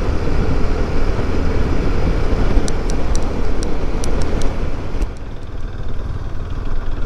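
Motorcycle engine running under way with heavy wind and road noise. A few faint ticks come between about three and four and a half seconds in, and the level drops a little about five seconds in.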